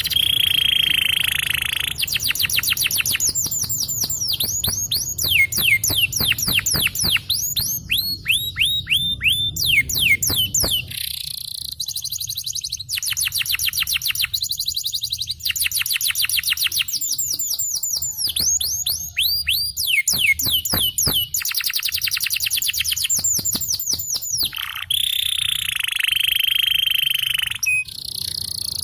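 Canary singing a long, continuous song of rapid rolling trills. Fast runs of repeated notes sweep down in pitch and alternate with buzzy stretches, with no pause.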